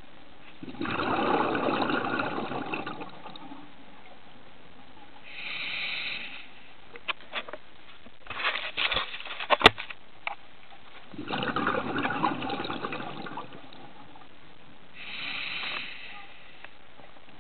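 Scuba diver breathing through a regulator underwater: two long bubbling exhalations and two shorter hissing inhalations, about ten seconds apart per breath. Around the middle, a flurry of sharp clicks and knocks on the camera housing while a sea lion is pressed against the lens.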